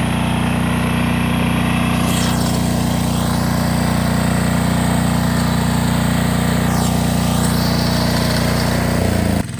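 Small engine of a two-wheel walking tractor running steadily under load as its rotary ridger cuts a furrow through the soil. Just before the end the sound drops abruptly and the engine pitch shifts.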